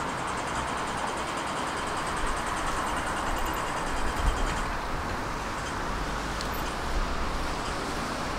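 City street traffic noise: a steady hum of road traffic, with a deeper rumble of a vehicle passing about halfway through.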